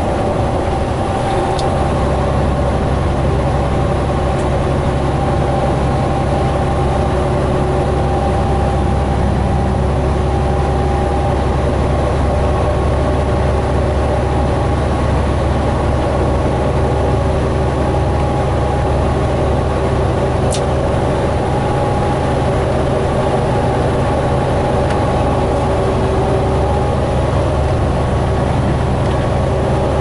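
Semi-truck cab interior at highway cruising speed: a steady diesel engine drone with road noise, and two short sharp ticks, one near the start and one about twenty seconds in.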